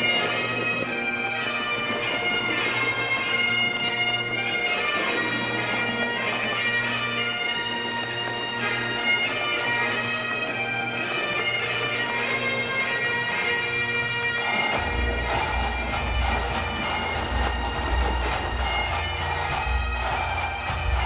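Bagpipe music: a tune played over a steady drone. About fifteen seconds in, a low pulsing beat joins.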